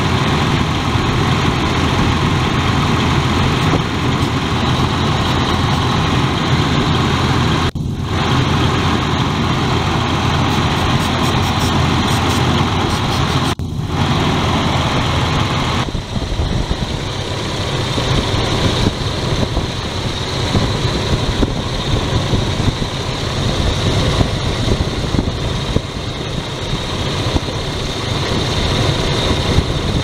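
1999 Ford Explorer 4.0L SOHC V6 idling steadily, with no rise in revs while starting fluid is sprayed around the intake: no vacuum leak shows at those spots, and the rough idle the owner is chasing remains unexplained. The sound drops out briefly twice, about 8 and 14 seconds in.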